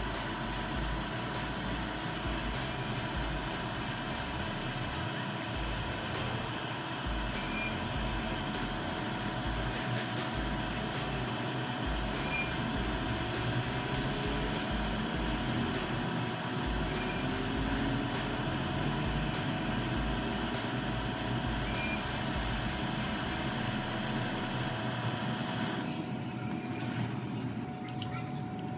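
Steady mechanical whir with a faint constant tone; the higher hiss thins out near the end.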